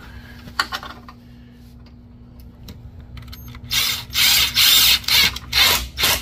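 Cordless drill driving a self-tapping screw through a radiator mounting bracket with no pilot hole, running in five or six short spurts that start about four seconds in.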